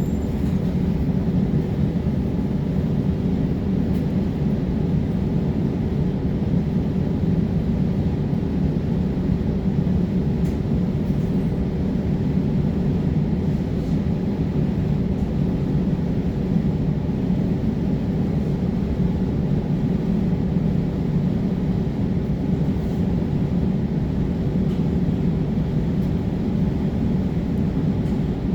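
Transit bus running steadily: a continuous low drone with a steady hum that holds one pitch throughout.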